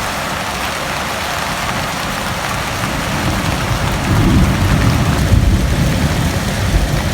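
Heavy rain pouring steadily in a dense hiss; about four seconds in, a deep low rumble swells up under it and carries on.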